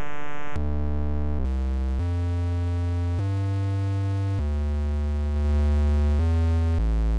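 Sub bass from the Serum synth, distorted through the Trapdrive plugin, playing a slow line of held low notes that change pitch every half second to two seconds. It gets slightly louder about five seconds in as the plugin's knobs are turned.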